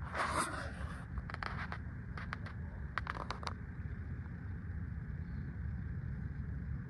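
A few footsteps scrape on shoreline gravel and rocks in the first few seconds. Under them and after them, wind rumbles steadily and low on the microphone.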